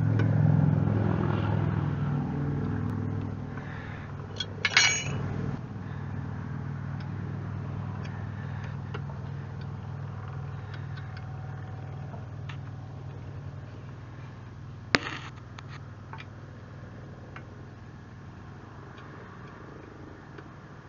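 Kubota tractor's diesel engine idling steadily under the backhoe, growing gradually quieter. Metal tools clink a few times about five seconds in, with one sharp clink about fifteen seconds in.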